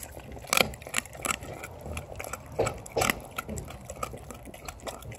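A dog eating raw chicken from a stainless steel bowl: wet chewing and licking with irregular sharp clicks and crunches, a few louder ones about half a second in and around the three-second mark.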